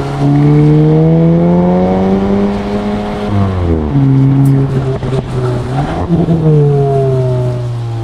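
2023 Volkswagen Golf GTI's 2.0-litre turbocharged four-cylinder engine pulling hard, its pitch climbing for about three seconds. A quick upshift drops the pitch. There is a brief rise around six seconds in, then the pitch falls away as the car eases off.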